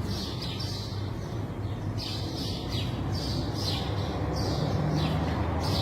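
A small bird chirping over and over, short high notes about twice a second, over a steady low hum.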